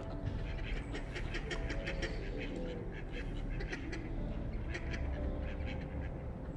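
Birds calling in many quick, short calls over a steady low rumble.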